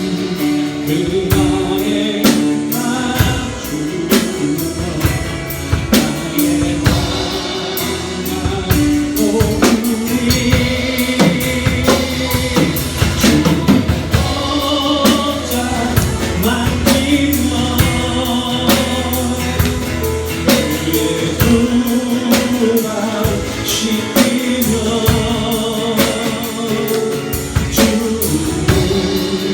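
A live church praise band playing a Korean worship song, with singers over a drum kit and instrumental accompaniment.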